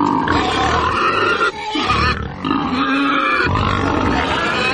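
Pig sound effect: a pig grunting and squealing in several loud calls with short breaks, played over music as a comic drop after 'a piggy'.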